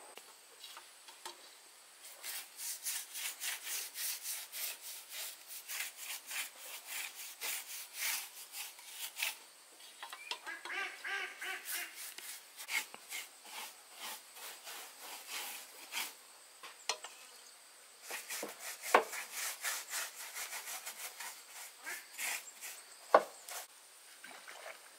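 Hand tool working wood in rhythmic back-and-forth strokes, about three a second, in three runs with short pauses between them. Two sharp knocks come in the last run.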